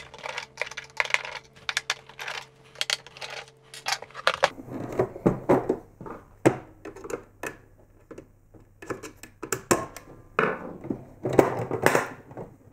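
Plastic casing of a Chinon DCM-206 image copier being handled and taken apart: a run of sharp clicks and rattles, then scraping and clacking as the top cover is worked loose and lifted off the base about halfway through.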